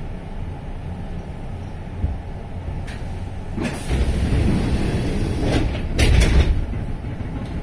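Kintetsu commuter train's pneumatic sliding passenger doors opening at a station stop, with a rush of air and a rumble starting about four seconds in and a louder burst about six seconds in, over the steady low hum of the stopped train.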